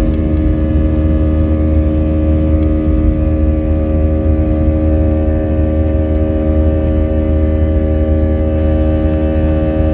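Airliner engines running steadily at takeoff thrust, heard from inside the cabin as the aircraft lifts off and climbs: a deep rumble with several steady tones over it.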